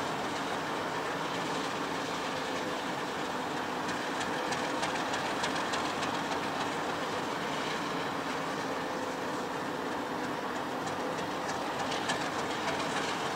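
Diesel locomotive running steadily, a constant engine drone with light rail clicking over it.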